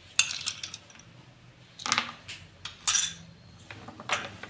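A few separate clinks of ice cubes and a steel ladle knocking against a glass bowl of buttermilk, as the ice is added and stirred in; the loudest comes about three seconds in.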